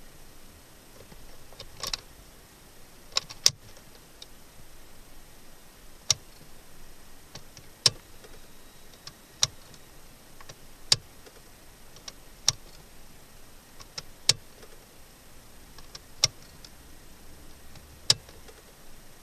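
Ignition key being cycled in the switch of a 2004 Chrysler Voyager, giving sharp clicks every one and a half to two seconds, a close pair near the start: the key on-off routine meant to call up the stored fault codes on the dashboard.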